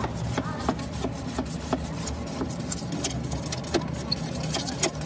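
Irregular sharp clicks and crackles of plastic as old adhesive is picked and peeled from the edge of a car headlight lens, a few a second. Under them runs a steady low engine hum.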